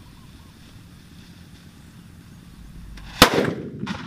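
A paper firecracker (mercon) on a stick goes off: one loud, sharp bang about three seconds in, then a second, smaller bang under a second later, each with a short tail dying away.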